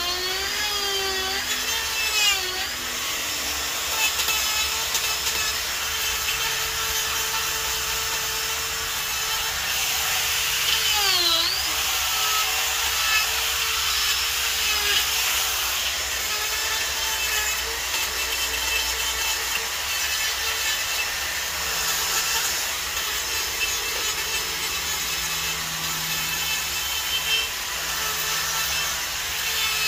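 Die grinder with a carving burr cutting into a wood log: a steady motor whine with the scratchy rasp of wood being ground away. The pitch sags and recovers a few times as the burr bites harder, most deeply about eleven seconds in.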